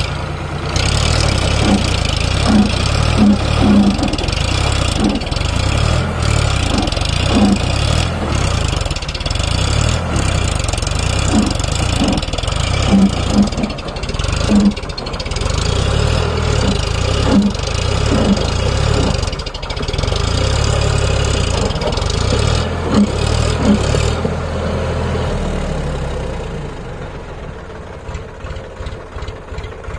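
Heavy diesel engine running hard with a steady rumble, easing off over the last few seconds.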